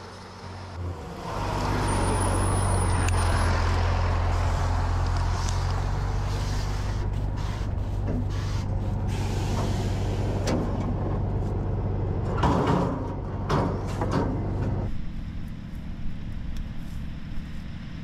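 Heavy Tatra truck's diesel engine running at a steady low idle, starting about a second in and dropping off near the end. Scattered metallic clanks and short hisses from the rocket launcher's machinery come in partway through.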